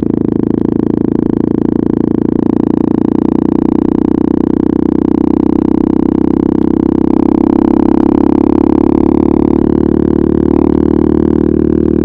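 KTM RC 390's single-cylinder engine breathing through an Akrapovič exhaust, running at steady cruising revs. It gets a little louder about seven seconds in.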